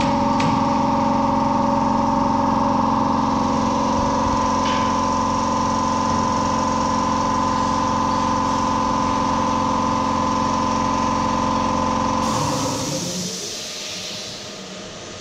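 Steady mechanical hum of shop machinery in a steel fabrication workshop, cutting off about twelve seconds in, followed by a brief high hiss.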